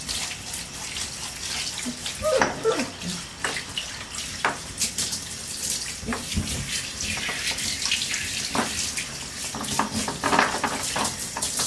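Water running from a handheld bath sprayer with a rubber brush head onto a puppy in a bathtub. It makes a steady spray hiss with splashes as the water hits the puppy's coat and the tub.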